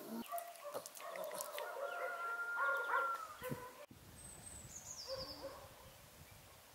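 Domestic fowl calling in a series of pitched calls, one held for about a second. Near the end, a small bird gives a high call that slides downward.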